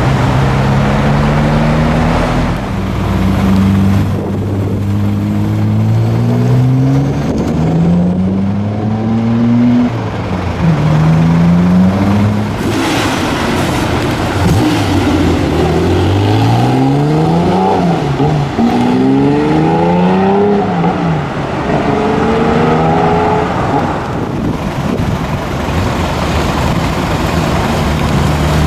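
Modified Japanese sports cars accelerating hard one after another. The engine note climbs steeply in pitch and drops back at each gear change, over and over.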